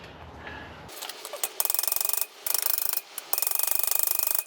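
Wire brush scrubbed hard over a fresh weld bead to clear off slag and spatter. It is a loud, rasping scratch that starts about a second in and comes in three long strokes with brief pauses between them.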